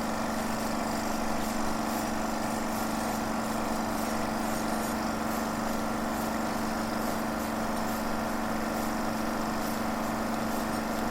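A steady electronic buzzing drone, part of a sound effect. It holds one low pitch with a hiss over it and does not change.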